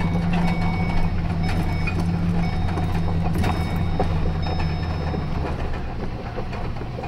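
Pickup truck engine running steadily while driving, with light knocks and rattles from the road; the engine note drops about five seconds in.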